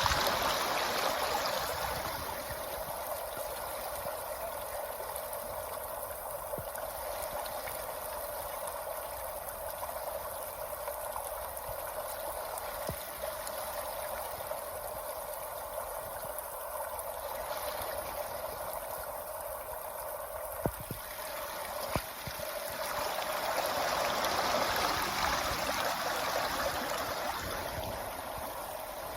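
Steady rushing of a mountain stream cascading over rocks. It swells louder near the start and again from about 23 to 27 seconds in, with two short sharp knocks about 21 and 22 seconds in.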